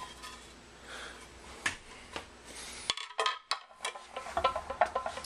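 Light metal clinks and knocks as the timing cover of a GM LS V8 is lifted off the engine and handled, with a denser run of clicks near the end.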